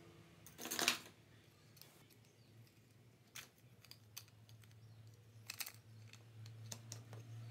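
Small clicks and rattles of a disassembled hot air gun's plastic housing, heating element and fan motor being handled and picked at with tweezers. A short rattling clatter comes about a second in, then a few scattered light clicks.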